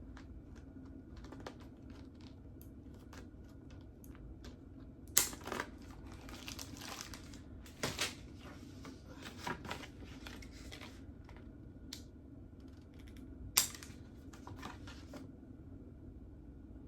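Scissors cutting packaging, with a few sharp snips, amid light clicking and crinkling plastic wrap being handled.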